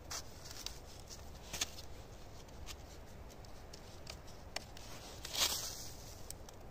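Light wooden clicks and rustles as a hand-made snowshoe frame of peeled spruce sticks with cord-lashed cross-pieces is handled and flexed, with a louder scuffing rustle about five seconds in.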